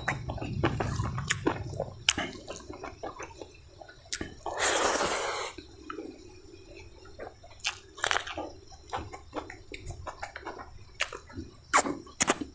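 Close-miked eating by hand: wet chewing, lip smacks and many sharp clicks as rice, chicken and snails go into the mouth, with a loud slurp lasting about a second around four and a half seconds in.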